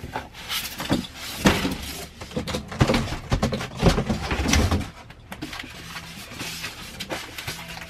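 Cardboard box and foam packing being handled as a foam-wrapped machine is lifted out and set down on a desk: a run of knocks, scrapes and rubbing, busiest over the first five seconds and quieter after.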